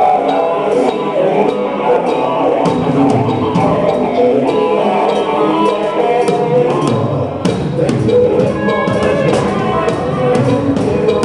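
Instrumental stretch of a rock-style song with guitar, and a drum kit played along to it in a steady beat with frequent cymbal and snare hits.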